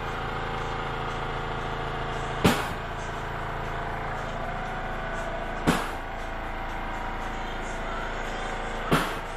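Steady drone of heavy machinery, with several steady hum tones, broken by a sharp bang with a short ring about every three seconds, three times.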